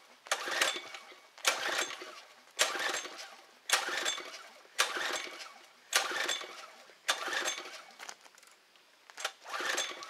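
Recoil starter on a pressure washer's Briggs & Stratton 725 OHV engine, pulled eight times at about one pull a second with a short pause near the end. The engine cranks with each pull but does not catch, which the owner puts down to a carburetor stopped up with crud.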